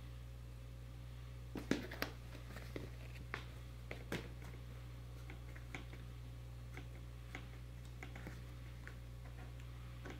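Cardboard cereal box rustling and tapping as a kitten moves about inside it and another paws at it: an irregular string of light clicks and scrapes, loudest about two seconds in and again around four seconds in, then softer and sparser.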